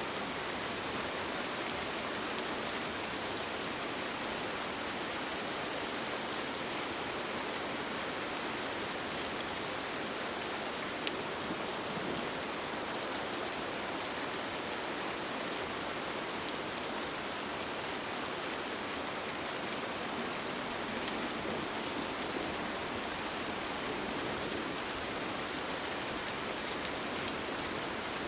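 Steady rain falling on a tent, an even hiss with a few faint drop ticks.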